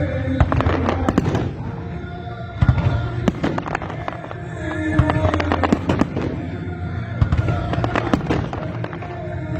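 Fireworks going off in quick succession: many sharp bangs and crackles over a low rumble, with music playing alongside.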